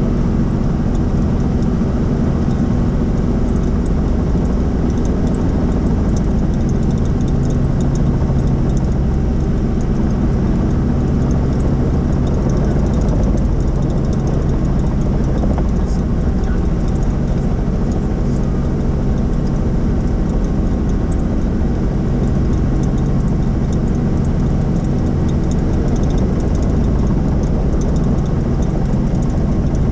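Helicopter engine and rotor noise heard from inside the cabin in flight, a loud, steady drone with a low hum that does not change.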